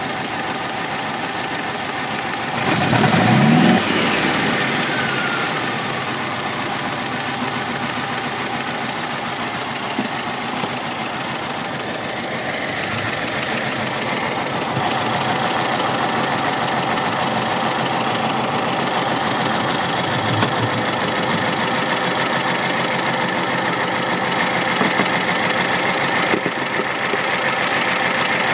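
Porsche 912's air-cooled flat-four engine running steadily, heard close up at the crankshaft pulley and fan belt. There is a brief louder swell about three seconds in.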